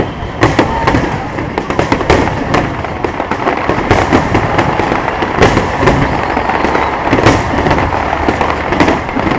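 Fireworks display: a dense, irregular string of loud bangs and crackling reports, many per second and overlapping, over a continuous low rumble.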